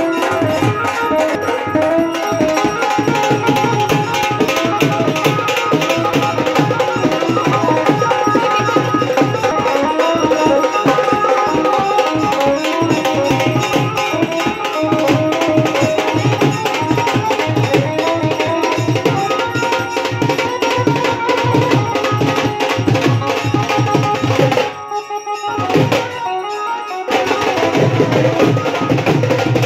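Music with a fast, steady drum rhythm under a melody. It drops away for about two seconds near the end, then resumes.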